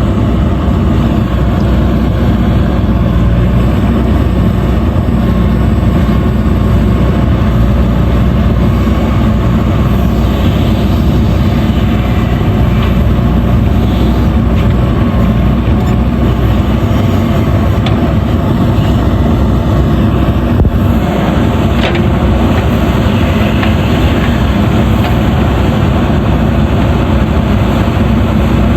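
JCB backhoe loader's diesel engine running steadily under digging load, with a deep, even engine note and a couple of faint clicks about two-thirds of the way through.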